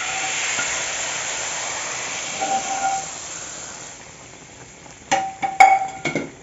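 Hot tempering oil and curry gravy hissing and sizzling in a frying pan as the pan is emptied into the chicken curry. The sizzle fades after about four seconds. Near the end come a few sharp, ringing metal clinks and knocks against the pot.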